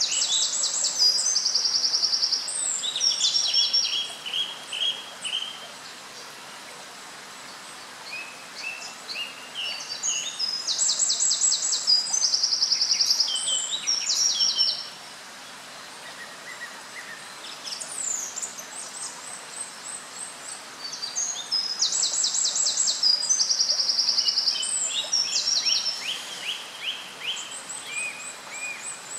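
A small songbird singing three loud, high phrases of rapid trills and repeated notes, each about four to five seconds long, with pauses between them. A steady background hiss runs underneath.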